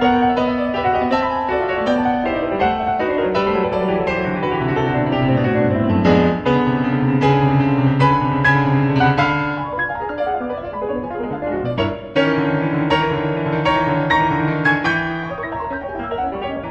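Background piano music, steady played notes over a sustained bass line, with a brief break about twelve seconds in.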